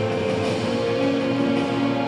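Instrumental dressage freestyle music with long held notes; the notes change about a second in.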